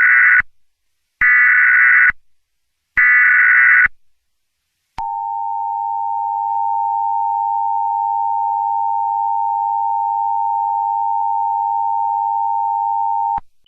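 Emergency Alert System tones. First come three short bursts of warbling SAME header data, about a second each with short silences between them. About a second later the steady two-tone EAS attention signal starts; it holds for about eight seconds and cuts off sharply near the end.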